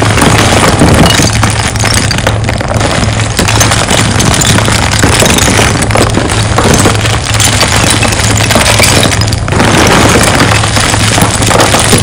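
Hands squeezing and sifting chunks of hard gym chalk: dense, continuous crunching and crackling with glassy clinks as the pieces grind together and fall back into the pile. There is a brief pause about nine and a half seconds in.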